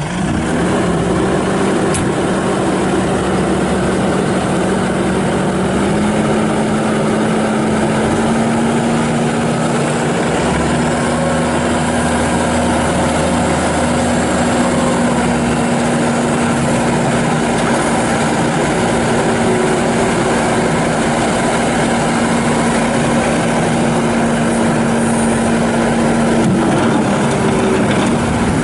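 2016 Bobcat S750 skid steer loader's diesel engine running just after start-up, steady, stepping up in speed about six seconds in and holding there, then easing down slightly near the end.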